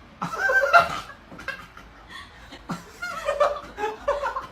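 A person laughing in several short bursts, the loudest near the start.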